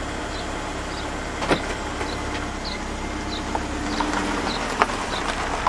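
Chevrolet HHR running and pulling slowly away, a steady engine and vehicle hum, with a single click about one and a half seconds in.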